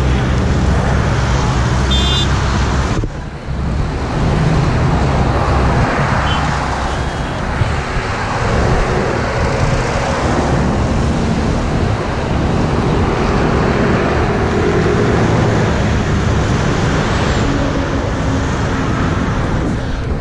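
Road traffic noise: vehicle engines and tyres running steadily, with a short dip in loudness about three seconds in.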